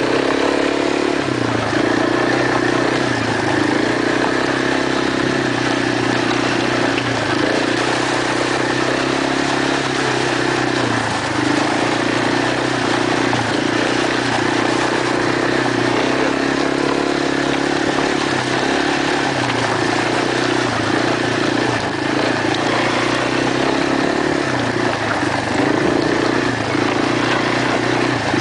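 ATV (quad) engine running on the move at a fairly steady speed, its pitch holding with small dips and rises, over a constant rush of noise.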